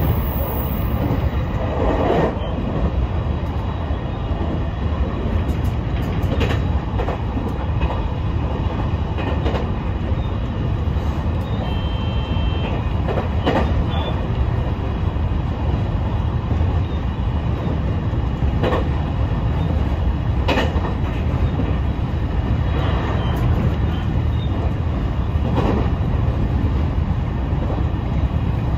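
JR East E721-series electric train running along the line, heard from inside the car: a steady low rumble of wheels and running gear, with a sharp clack from the wheels on the track every few seconds.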